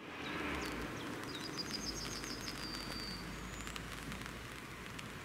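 Outdoor ambience with birds chirping, a quick run of high notes in the middle and a short rising whistle after it, over a faint steady low rumble.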